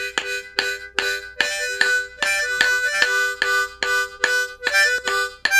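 Harmonica playing a simple tune of held, stepping notes over a steady beat of wooden sticks clicked together, about two to three clicks a second.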